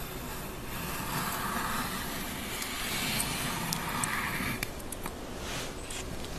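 Kitchen knife slicing through a tomato on a wooden cutting board: a soft scraping hiss that swells and fades, with a few small sharp clicks of the blade against the board.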